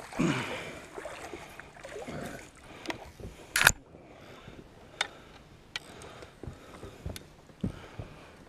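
A catfish splashing as it thrashes in a landing net at the water's surface, then a series of sharp knocks and clunks as the net, fish and rods bump the metal boat. The loudest knock comes about three and a half seconds in.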